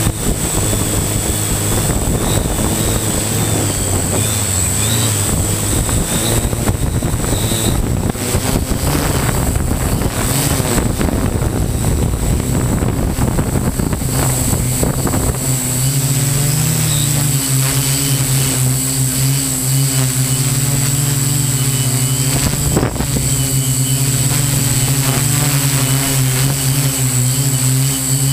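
Model hexacopter's electric motors and propellers running steadily, heard from the camera on board: a low propeller hum with a high motor whine above it. A rushing noise covers the first half; about halfway through the hum becomes cleaner and shifts in pitch as the craft descends.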